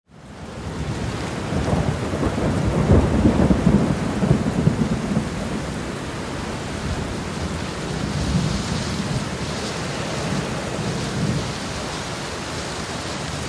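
Steady rain with thunder rumbling, heaviest about two to five seconds in, then fainter rolls of thunder under the rain.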